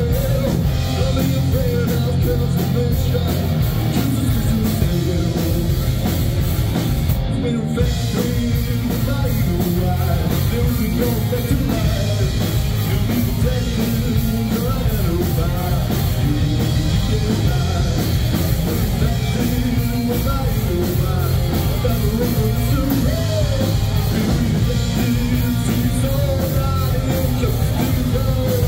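Live rock band playing loud and steady on electric guitar, bass guitar and drums, with a man singing into a handheld microphone.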